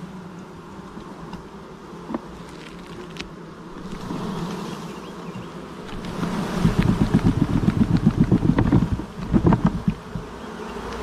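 Swarm of honeybees buzzing as a wooden swarm trap box is shaken out over an open hive. About six seconds in comes a loud run of rapid rhythmic knocking and jolting, roughly four or five a second for about two seconds, then a shorter burst, as the box is shaken to drop the bees onto the frames.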